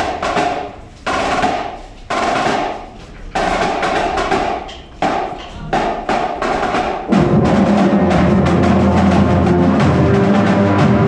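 High school marching band drumline playing a percussion cadence of drum rolls and hits. About seven seconds in the sound turns fuller and louder, with steady low pitched notes joining the drums.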